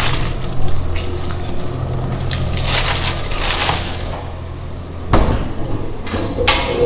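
Plastic wrapping sheets crinkling and rustling in irregular bursts as they are peeled off blocks of fish paste, over a steady low machine hum. A sharp, loud knock comes about five seconds in, and a smaller one shortly before the end.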